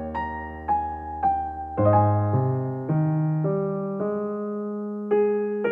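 Background music: electric piano playing a slow run of single notes over held bass notes.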